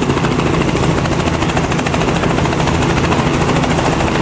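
Robinson R44 piston-engined helicopter running at full rotor speed on the ground just before lift-off: a steady, rapid blade chop over the drone of its engine.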